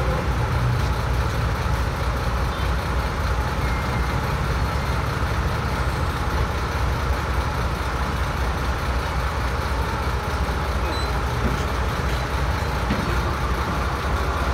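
Diesel engine of a Samsung MX6-2 wheeled excavator running at a steady low idle, an even rumble that does not change.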